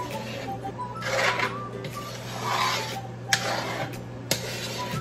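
A spoon scraping and stirring thick tomato meat sauce in a large metal wok: a few rasping strokes across the pan, then a couple of short knocks of the spoon against the pan. The sauce is being stirred so it does not stick.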